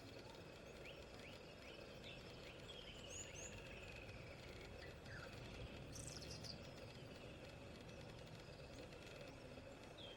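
Faint outdoor bush ambience: scattered short bird chirps and whistles over a low, steady background.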